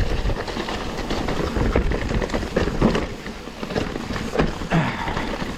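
Mountain bike on Specialized Cannibal tyres rolling over wet rocks and roots: a steady rumble with frequent rattling knocks and clicks from the bike and tyres hitting rocks.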